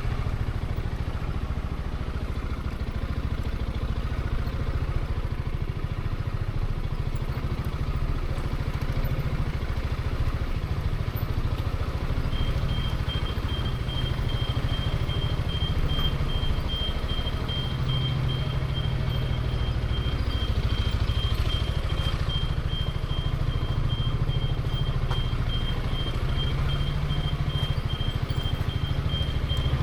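Zontes 350E scooter's single-cylinder engine running steadily under the rider. From about twelve seconds in, a high, rapid beeping sounds along with it.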